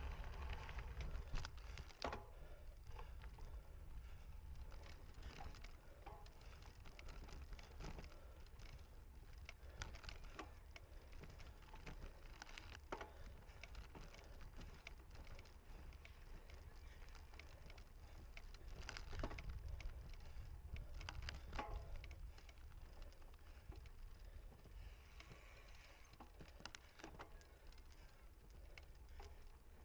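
A cyclocross bike rattling and clicking as it is ridden over rough ground, with irregular light knocks and jingles over a steady low rumble.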